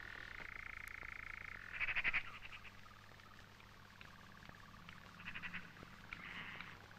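Frogs calling: a steady, rapidly pulsing trill for the first second and a half, then shorter trilled calls, the loudest about two seconds in.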